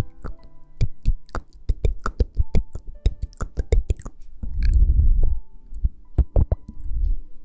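Rapid, irregular tapping and clicking close to the microphone over soft background music with held notes, with a low rumbling rustle about four and a half seconds in.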